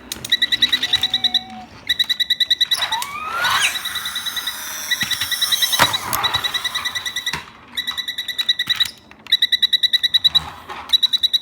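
Toy metro train's electronic sound effect: a rapid, high beeping of about ten beeps a second in bursts of a second or two, like an MRT door-closing warning, with a stretch of mixed noise and sliding tones in the middle.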